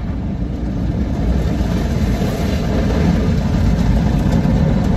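Automatic car wash machinery working over the car, a loud, steady noise heard from inside the cabin.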